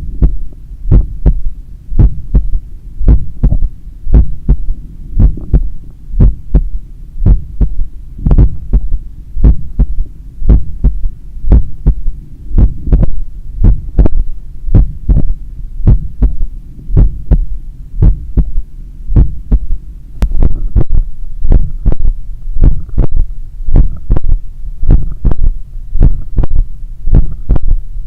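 Heartbeat heard through a stethoscope pressed over the apex of the heart: loud, rhythmic beats, each with a low third heart sound (S3) after the main pair, over a constant low background. The heart is still settling after a hard run, and the S3 is an athlete's third heart sound.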